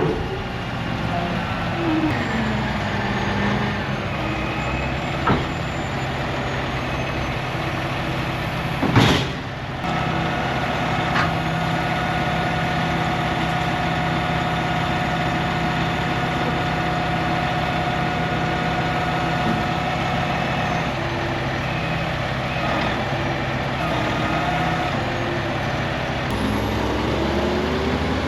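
A large engine running steadily, with a faint whine that rises and falls at times. There is one sharp knock about nine seconds in.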